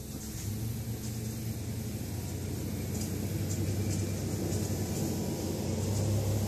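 A low, steady engine drone with a hum, growing slightly louder.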